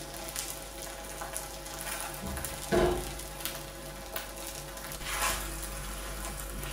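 Puri sizzling steadily in oil and ghee in a nonstick frying pan over a high gas flame, with one brief louder sound a little under three seconds in and a flare of hiss about five seconds in.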